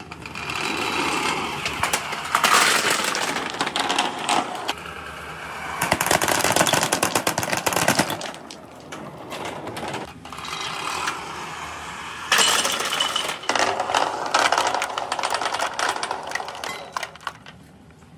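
Small balls rolling and rattling down a clear plastic marble-run tube. The clatter comes in several long, loud runs with brief lulls between them.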